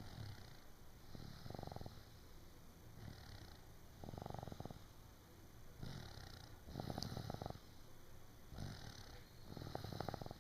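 Snoring, a rattling flutter on each breath, repeating about every one and a half seconds.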